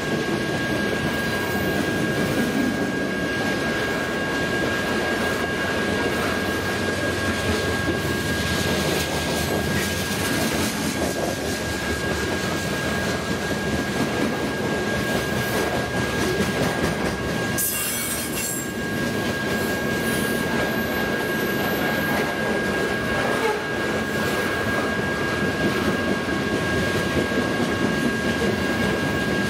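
Freight train of covered hopper grain cars rolling past: a steady rumble of steel wheels on the rails, with a thin, steady high-pitched wheel squeal running through it.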